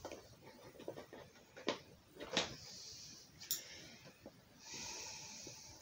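Plastic parts of a toy helicopter model being handled and fitted together: a few sharp clicks and knocks, then about a second of rustling near the end.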